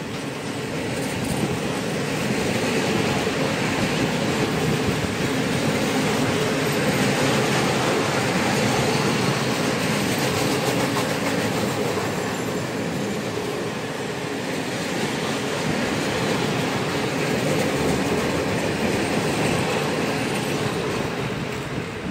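A freight train of open-top gondola wagons rolling past close by: a steady rumble and clatter of wheels on rail. It fades away near the end as the last wagon goes by.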